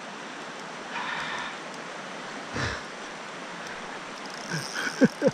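Steady rush of a river's current over stones. Near the end, a man's voice gives a few short, sharp falling exclamations, the loudest sounds here.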